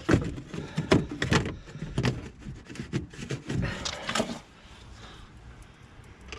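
A quick run of knocks, clicks and rattles from hands refitting parts behind a car's headlight, dying away about four and a half seconds in.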